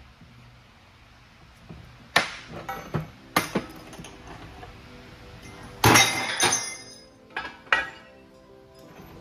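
Heavy steel transmission parts (housing, bearing, gears) clanking and clinking as they are set down and moved on a steel workbench: several sharp metallic knocks with ringing, the loudest cluster about six seconds in. Background music plays underneath.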